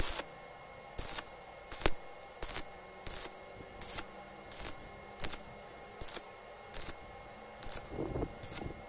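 Stick arc welding on a joint in thin square steel tubing. The arc crackles in about a dozen short bursts, roughly one every 0.7 seconds, as the electrode is struck and broken again and again.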